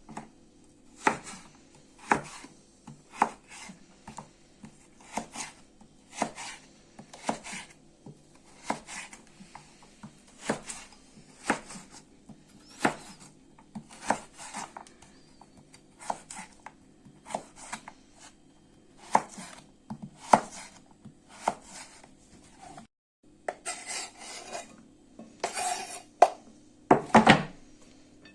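Knife chopping carrots on a cutting board, about one cut a second, over a steady low hum. Near the end come a few louder knocks and clatters.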